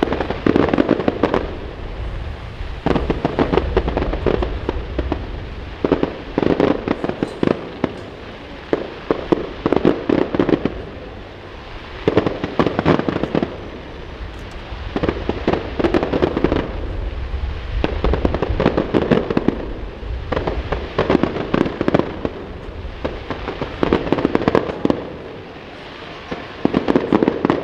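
Aerial fireworks shells bursting in volleys of rapid, crackling bangs, a new volley about every three seconds. A steady low wind rumble on the microphone runs underneath.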